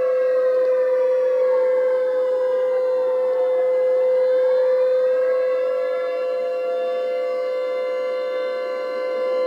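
Civil defense siren sound effect wailing over a steady held tone: its pitch falls over the first few seconds and climbs back up about six seconds in.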